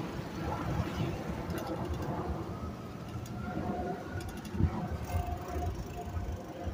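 Wind buffeting the microphone and road noise while riding a bicycle along a city street, a low uneven rumble with a few light clicks, the sharpest about four and a half seconds in.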